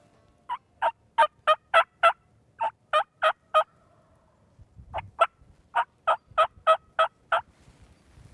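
Wild turkey yelping: three runs of short, evenly spaced yelps, about three a second. The first run has about six yelps, the second four, and the last seven or eight.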